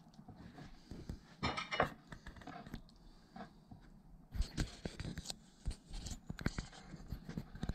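Kitchen knife cutting through a catfish fillet on a wooden cutting board: irregular scrapes and taps of the blade against the board, coming thicker from about halfway through.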